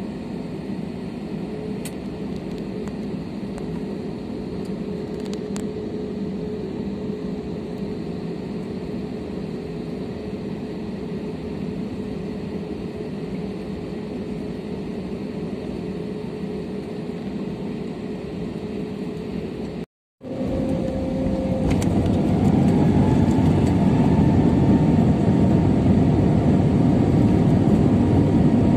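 Airbus A320 jet engines heard from inside the cabin: a steady hum with a held tone while taxiing. After a brief gap about two-thirds through, the engines spool up to takeoff power with a rising whine and become much louder.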